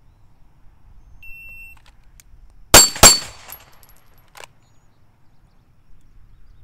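A shot timer's start beep, then a handgun fired twice in quick succession, the two shots about a third of a second apart. A faint high ring and a sharp tick follow within about a second and a half.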